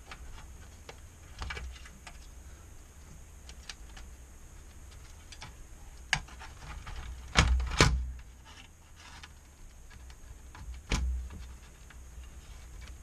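Handling noise from working on an open LCD monitor's metal chassis: scattered clicks and knocks as hands pull wiring and move the power-supply board. The loudest is a close pair of knocks about halfway through, and another comes about two seconds before the end.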